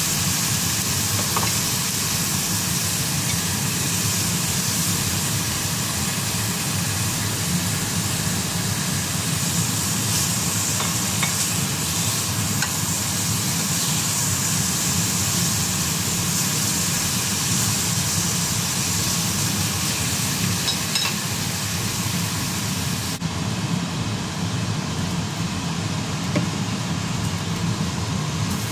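Thin slices of beef bacon sizzling steadily in hot oil in a frying pan, with a few light taps of chopsticks as they are turned. A steady low hum runs underneath.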